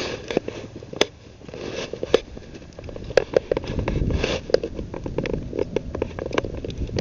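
Irregular sharp clicks, crackles and scrapes as a cat runs over dry leaves and twigs and claws at a tree trunk, with a low wind rumble on the microphone about four seconds in.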